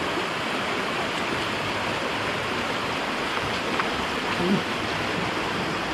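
Rushing river water, a steady even noise.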